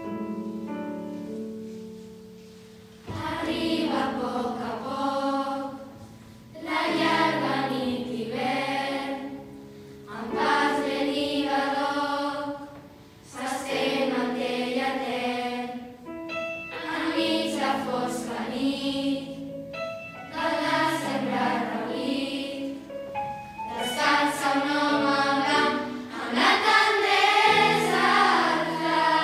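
A girls' school choir singing a Christmas carol over instrumental accompaniment. The accompaniment plays alone at first, and the voices come in about three seconds in, singing in phrases with short breaks between them.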